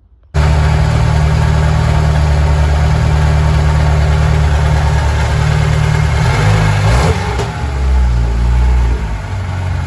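VAZ-2107 four-cylinder engine running loudly, cutting in abruptly a third of a second in. Its note shifts and varies from about seven seconds in.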